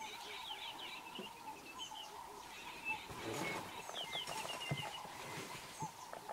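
African wild dogs twittering: quick clusters of high, bird-like chirps, about a second in and again near four seconds, over a thin steady tone.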